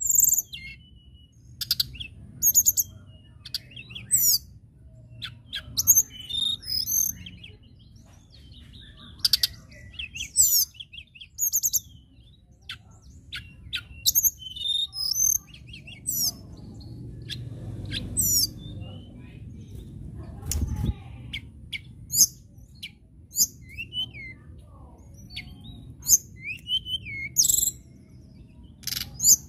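Blue flycatcher (tledekan) singing: a string of short, very high, sharp whistled chirps and slurred phrases with brief pauses between them, and a few lower swooping notes near the end, over a low background rumble.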